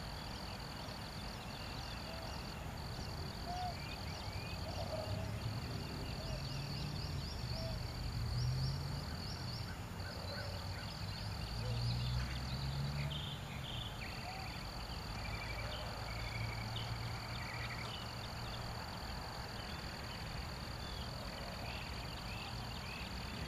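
Outdoor dawn ambience: a steady high-pitched trill with a few brief gaps, scattered bird chirps, and a low rumble that swells and fades.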